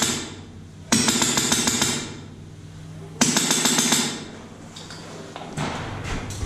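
Airsoft gun firing full-auto in three short bursts of rapid, evenly spaced shots, each about a second long, echoing inside a corrugated-metal shack.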